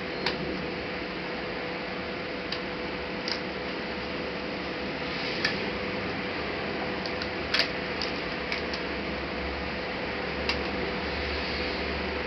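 Light clicks and taps of laptop parts and tools being handled, scattered irregularly with a sharper double click about two-thirds of the way through, over a steady background hiss and faint hum.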